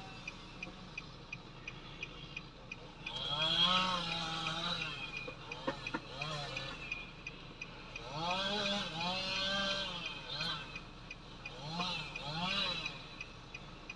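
Muffled voices talking in short phrases over a steady, rapid ticking of about four ticks a second.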